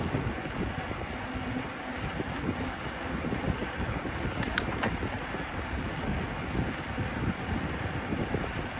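Wind buffeting the microphone of a moving bicycle, a steady gusty low rumble, with two short sharp clicks about four and a half seconds in.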